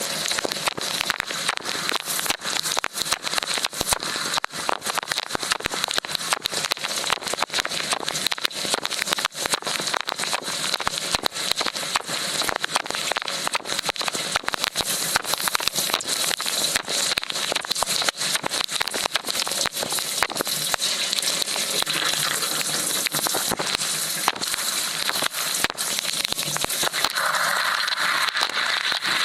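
Dishwasher wash cycle heard from inside the tub: water jets from the spray arms spattering against the racks and the camera in a dense, crackling spray, with a steady high whine underneath.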